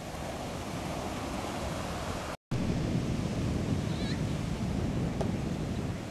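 Ocean surf washing steadily, with wind on the microphone. The sound drops out for an instant about two and a half seconds in, at an edit, and returns louder with more wind buffeting.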